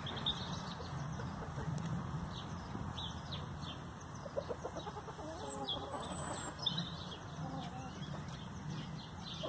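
Chickens clucking now and then as they feed together on a heap of fresh-cut grass, with short low calls mostly around the middle.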